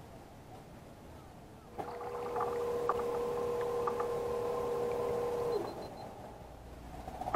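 Bixpy electric jet motor on a kayak running with a steady, even whine that starts abruptly about two seconds in and cuts off after about four seconds, with a few light clicks over it.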